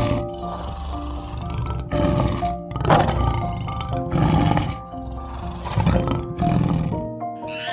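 An animal roaring several times in rough bursts, over steady background music.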